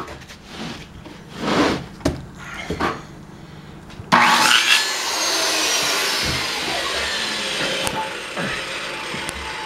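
A few wooden knocks and rubs, then about four seconds in an electric power tool starts suddenly and runs steadily on the pallet wood, easing off slightly near the end.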